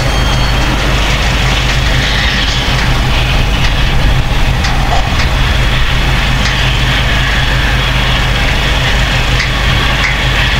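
Case IH Quadtrac 620 tractor's six-cylinder diesel engine running steadily with a deep, even drone.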